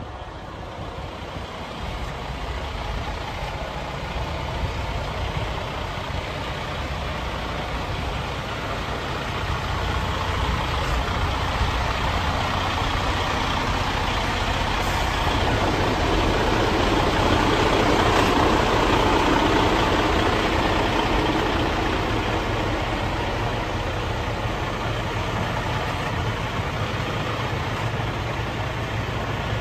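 Detroit DD15 six-cylinder diesel of a Freightliner SD122 dump truck idling steadily, growing louder around the middle and easing off again.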